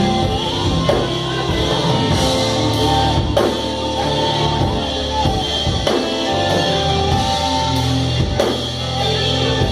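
Live gospel worship band playing a slow instrumental passage: sustained chords over bass and a drum kit, the drums striking at a steady slow beat.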